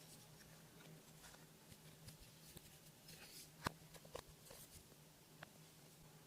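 Near silence with a few faint clicks and crackles of slime being worked by hand, the loudest about three and a half seconds in.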